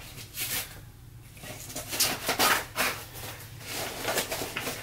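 Plastic gift packaging crinkling and rustling in irregular bursts as it is worked open by hand.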